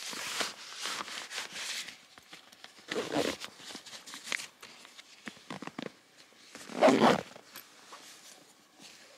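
Rustling and handling noise close to the microphone: about two seconds of dense rustling, then scattered crackles, with a bump about three seconds in and a louder bump about seven seconds in.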